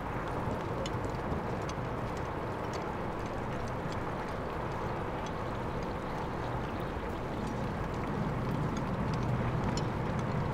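A steady low rumble with scattered faint ticks, growing a little louder near the end.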